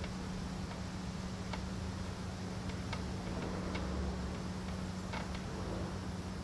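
A few light, irregular clicks and taps from hand work on a steel carriage-frame brace as it is set in place, over a steady low hum.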